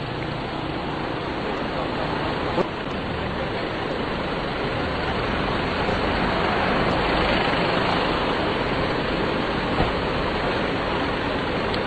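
Steady rushing roar of a tsunami surge flooding ashore, swelling slightly toward the middle.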